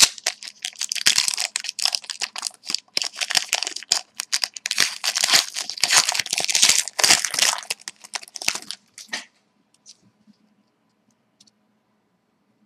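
Wrapper of a hockey trading-card pack being torn open and crinkled, a dense crackly rustle that stops about nine seconds in, followed by a few faint ticks.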